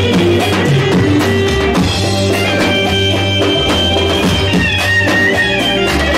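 Music with guitar and drums and a steady beat.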